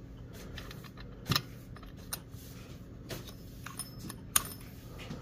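A flat steel washer clinking against a chainsaw's clutch-side shaft and housing as it is handled and fitted onto the shaft by hand: scattered light metal clicks, two sharper ones about a second in and about four seconds in.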